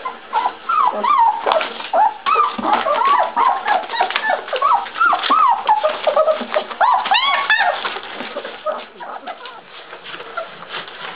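A litter of two-and-a-half-week-old Czechoslovakian Wolfdog puppies whining and squealing, many short rising-and-falling cries overlapping, busiest for the first eight seconds or so and then thinning out. The newspaper bedding rustles under them.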